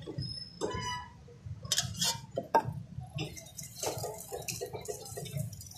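Juice poured from a steel jug into glass mugs, with sharp clinks of steel and glass knocking on the cart's counter. A low steady hum runs underneath.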